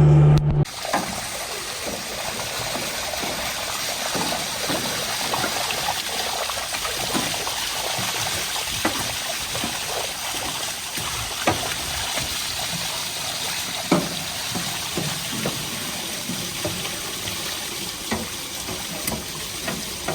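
Steady rush of running or spraying water, with scattered small clicks and knocks throughout.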